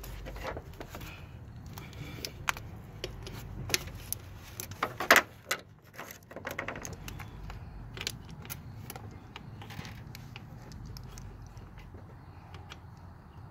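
Scattered clicks, taps and rattles of hands and tools working at ignition coil wiring connectors in a cramped engine bay, over a low steady hum. A cluster of louder clicks comes about five seconds in.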